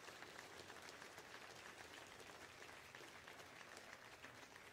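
Faint applause from a congregation, many scattered hand claps.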